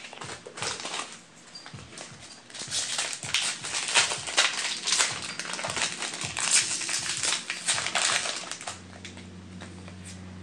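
Foil booster-pack wrapper crinkling and being torn open by hand, a dense run of crackles that stops about eight and a half seconds in. A steady low hum starts as the crackling ends.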